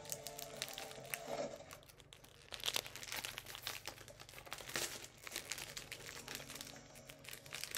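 Plastic mailer bag crinkling and rustling as it is handled and opened, in irregular spurts that are loudest about three and five seconds in.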